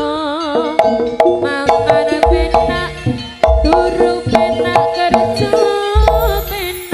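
Live jaranan music from a Javanese gamelan ensemble: a driving kendang drum rhythm under struck metallophones, with a wavering melody line at the start and deep gong strokes a little over two seconds in, at about three and a half seconds, and near the end.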